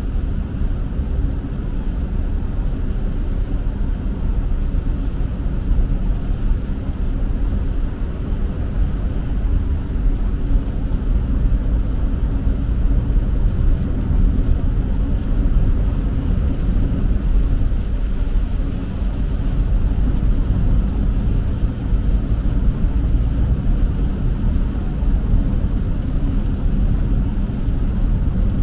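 Steady low road noise heard inside a car's cabin while driving on a rain-soaked highway: tyres on wet pavement and the engine.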